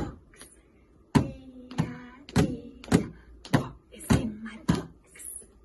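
Hands drumming on the lid of a plastic bucket: one knock, a pause of about a second, then seven steady knocks about every 0.6 s, each with a short hollow ring.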